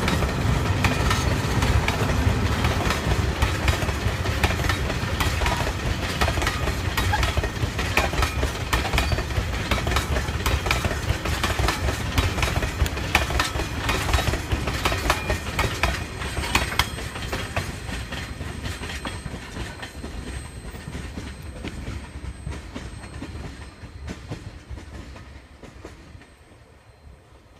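Loaded ore train wagons rolling past on steel rails, wheels clacking over the rail joints in a dense run of clicks. The sound fades steadily over the last ten seconds or so as the train draws away.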